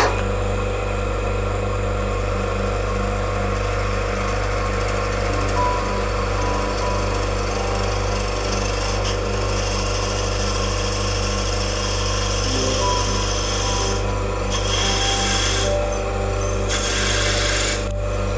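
Drill press running, its twist bit boring into a wooden pen blank cut from a whiskey barrel stave. The cutting noise drops out briefly twice in the second half, and there is a sharp click near the end.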